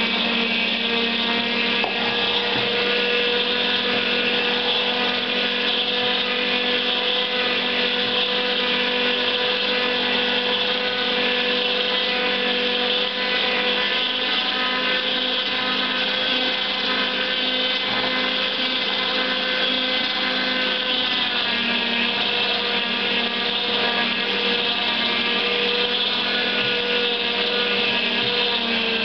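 Zelmer JP 1500 vertical slow juicer running steadily, its motor and auger giving a constant hum as it presses pineapple.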